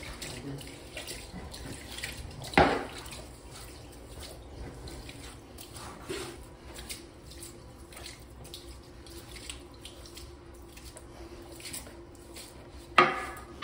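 Water splashing and trickling, like a sink or basin in use, with scattered small clicks and drips. A sharp knock comes about two and a half seconds in, and a louder clatter near the end.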